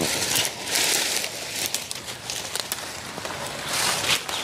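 Dry bean vines and twigs crackling and rustling in irregular bursts as they are pulled down and gathered by hand.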